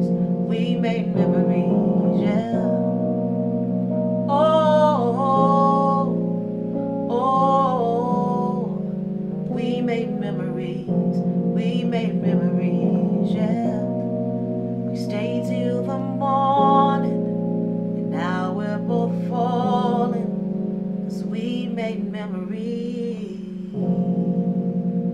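Keyboard playing held chords that change every second or few, while a woman sings wordless, sliding vocal runs over them in several phrases.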